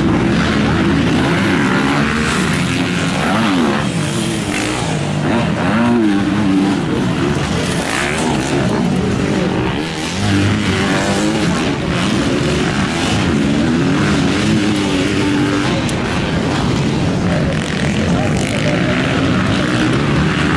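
Several motocross dirt bikes racing on the track, their engines revving up and down as they power over the jumps, the pitches of several machines overlapping.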